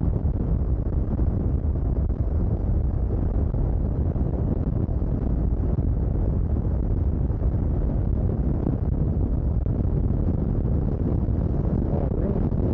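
Steady wind rush over the microphone, with the engine of a 2022 Triumph Tiger 1200 three-cylinder motorcycle running underneath at an even cruising speed.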